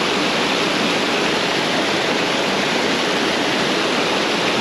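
Steady rushing of a small stream's water pouring close by.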